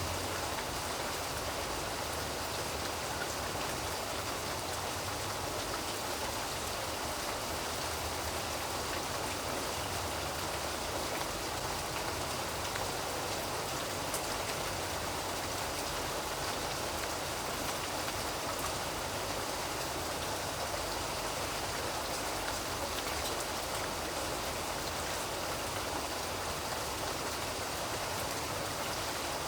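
Steady rain falling on a surface, with scattered drops standing out here and there.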